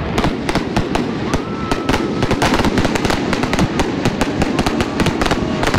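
Fireworks display: a dense, continuous run of sharp bangs and crackles from shells bursting overhead, several every second.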